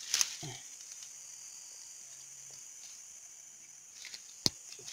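Steady high-pitched insect chorus, with a few sharp clicks of handling just after the start and one sharper click near the end.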